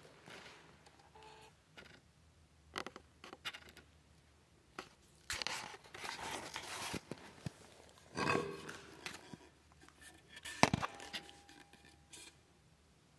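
Handling noises of a wooden log and hand tools: rustling and scraping of wood and chips, scattered light knocks, and one sharp knock followed by a short metallic ring about three quarters of the way through.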